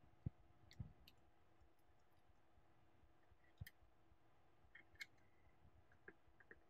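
Near silence broken by about half a dozen faint, scattered clicks: tiny screws and a precision screwdriver being set into a graphics card's circuit board to fasten a waterblock.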